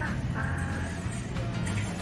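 Background music with a steady bass line and a held high melodic note.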